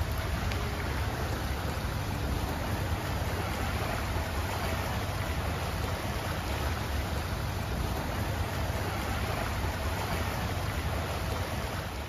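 Floodwater rushing across a flooded road: a steady, even rush of running water with a low rumble under it.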